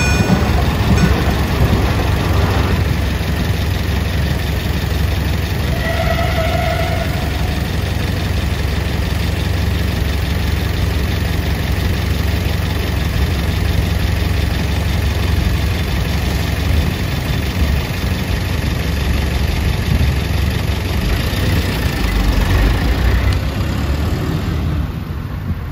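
Truck's diesel engine idling close by, a loud steady low hum, then pulling away near the end.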